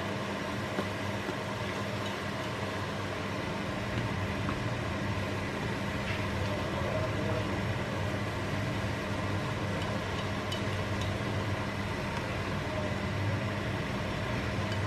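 Vegetables sizzling in a nonstick frying pan while a plastic spatula stirs and turns them, over a steady low hum.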